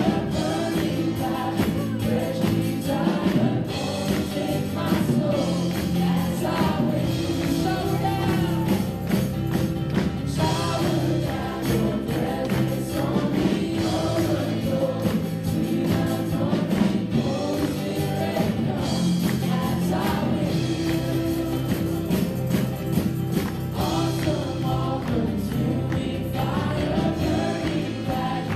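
Live worship band playing a gospel-style song: several voices, led by women, singing together over acoustic guitar, electric bass, keyboard and drums.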